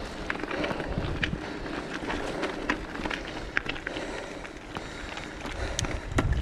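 Mountain bike rolling along a dirt and gravel singletrack: a steady crunch of tyres with frequent sharp ticks and rattles as the bike runs over stones, and wind rumbling on the microphone near the end.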